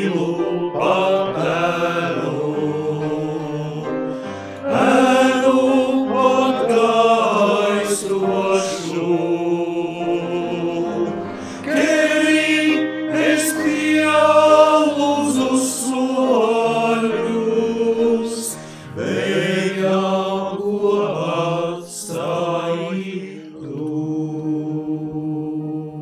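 Male choir singing in several-part harmony, phrase after phrase, closing on a long held chord in the last few seconds.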